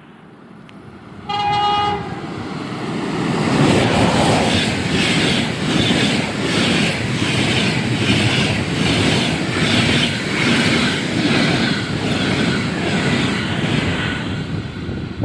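EP20 electric locomotive sounding one short horn blast, then the locomotive and its passenger coaches rushing past at speed, wheels clattering over the rail joints in an even rhythm that eases off near the end.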